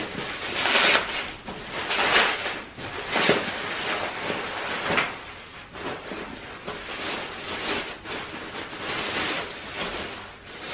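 Plastic bubble wrap and a plastic bag crinkling and rustling in irregular bursts as they are unwrapped by hand from a chainsaw.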